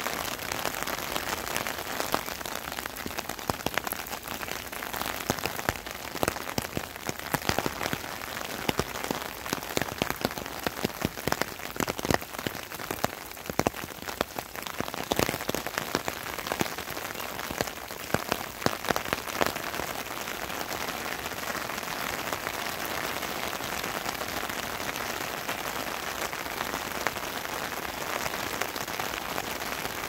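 Steady rain falling, with many sharp close ticks of drops over the first two-thirds, settling into an even hiss near the end.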